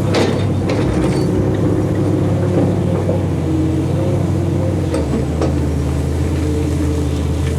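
Heavy diesel earthmoving machinery running steadily, with a few short knocks; the engine note changes about five seconds in.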